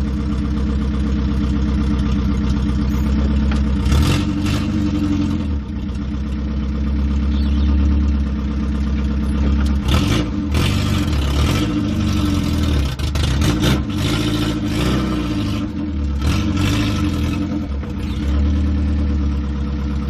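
1969 Ford Capri Mk1's engine running and revving as the car is driven, heard from inside the cabin, its pitch rising and falling with the throttle. A few short clattering rattles from the car come in along the way. The owners judge it to sound and run better.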